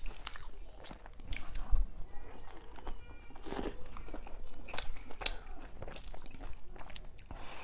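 A person eating close to the microphone: biting and chewing food, with irregular wet smacks and clicks.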